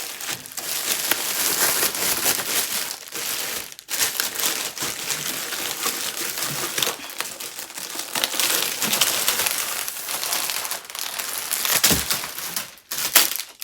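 Packaging crinkling and rustling as it is handled and pulled off a new fan heater, a dense crackle of many small clicks with brief pauses about four seconds in and near the end.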